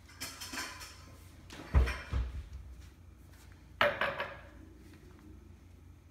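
Household knocks and rustling at a countertop. There is a brief rustle, then a heavy thump about two seconds in and a sharper knock near four seconds.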